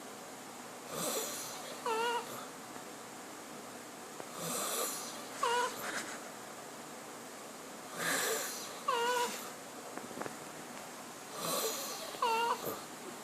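A person snoring: four breath cycles, one about every three and a half seconds. Each is a rasping, breathy sound followed about a second later by a short, high, squeaky pitched note.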